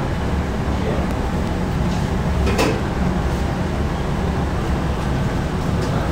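Steady low rumble of bakery machinery, with one sharp knock about two and a half seconds in.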